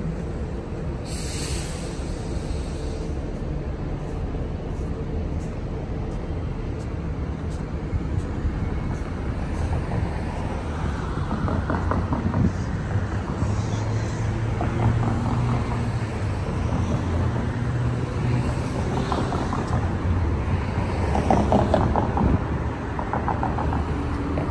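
Street traffic ambience: a steady rumble of cars idling and passing on a busy city road, with a short hiss about a second in.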